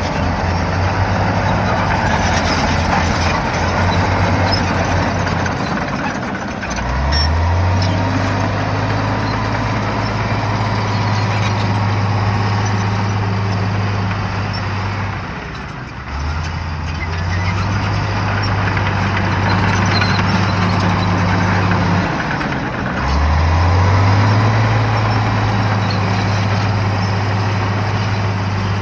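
Shantui bulldozer's diesel engine running hard, with loud working noise throughout. Its engine note dips and climbs back up three times, about 7, 16 and 23 seconds in.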